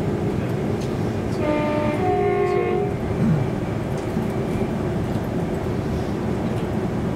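Class 350 electric multiple unit running at speed, heard inside the carriage as a steady rumble of wheels on the track. About a second and a half in, a two-tone train horn sounds for about a second and a half, a lower note followed by a higher one.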